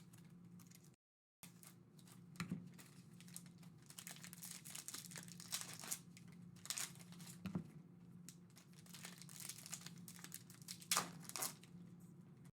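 Faint crinkling and tearing of the plastic and foil wrapping on Panini Illusions NFL trading card boxes and packs as they are opened by hand, in irregular crackles. A faint low hum runs underneath.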